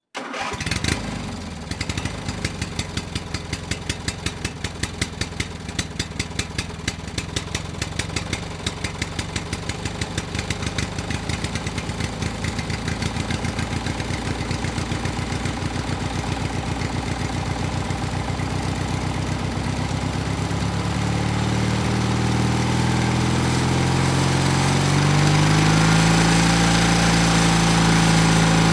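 Two-stroke engine idling with regular, uneven pops, then revving up gradually from about twenty seconds in and holding at high revs, the pitch starting to drop right at the end.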